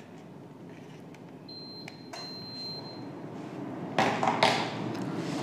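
Handheld calculator keys tapping, with a thin high electronic beep held for about a second and a half that breaks briefly partway through. About four seconds in comes a louder rustle of handling.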